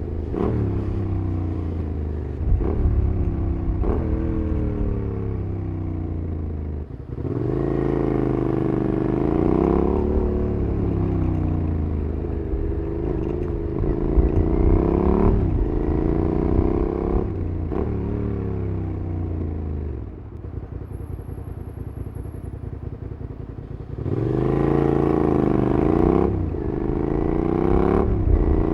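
2008 Suzuki SV650SA's 90-degree V-twin with a Cobra SC3 aftermarket exhaust, heard while riding. The engine revs up and drops back again and again as it pulls through the gears. About two-thirds of the way through it settles into a quieter, steady run, then revs up again near the end.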